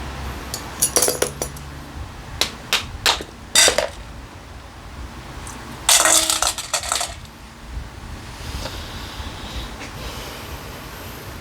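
Small metal carburetor parts and tools clinking against each other and a hard work surface during disassembly: scattered sharp clinks in the first few seconds, then a quick cluster of clatter about six seconds in.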